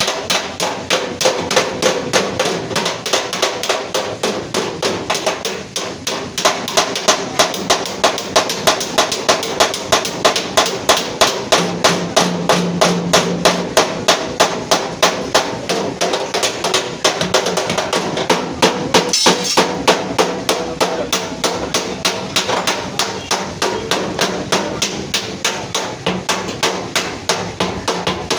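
Hammer beating out crash-dented sheet-metal body panels of a Suzuki Ravi pickup, a steady run of ringing blows about three a second.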